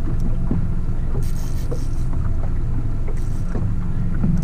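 A small fishing boat's motor running at low trolling speed, a steady low rumble with water against the hull. Two short high hissing sounds come about a second in and again about three seconds in.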